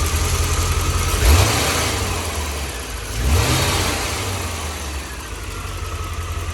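C4 Corvette V8 idling, revved twice by short throttle blips about a second and three seconds in, each settling back to idle. The engine is running right again after a leaking cold start injector and a loose coolant hose clamp were fixed.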